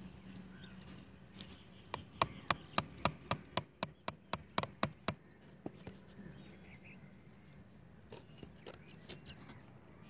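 A rapid series of about a dozen sharp taps, roughly four a second, starting about two seconds in and lasting about three seconds: a nail being tapped through a blue plastic pipe.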